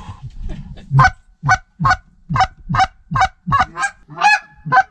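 A rapid, even series of goose honks, about two to three a second, starting about a second in. Each honk is a low note breaking up to a higher one.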